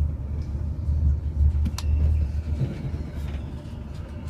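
TGV high-speed train's low running rumble heard from inside the carriage while it travels, easing off a little after about three seconds, with one sharp click a little under two seconds in.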